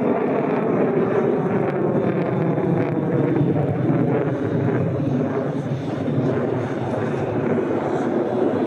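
Steady jet noise from an F-35A Lightning II's single Pratt & Whitney F135 turbofan as the fighter flies high overhead, easing slightly a little past the middle.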